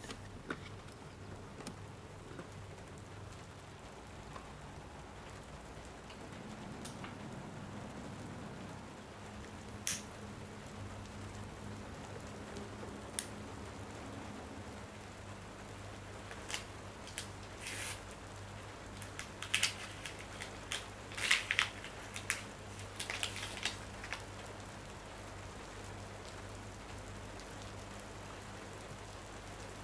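Steady rain over a low, even hum, with scattered sharp clicks and a flurry of small taps and clicks about two-thirds of the way through.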